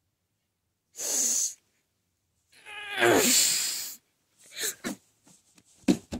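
A person's voiced noises, no words: a short hissing breath, then a longer strained cry that falls in pitch. Then scattered knocks from a plush toy being handled on carpet, with a sharp knock near the end as a small air purifier is knocked over.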